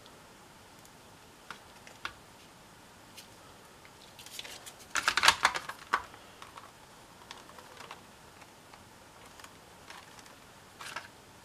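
Plastic clicks and rattles as an NCE ProCab throttle handset's case and circuit board are handled and fitted back together, with a brief cluster of louder clicks about five seconds in.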